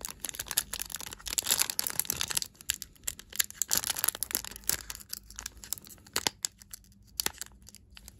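Foil wrapper of a Pokémon card booster pack crinkling and tearing as fingers work at opening it. Irregular crackles come thickest in the first two and a half seconds, then sparser, as the pack resists opening.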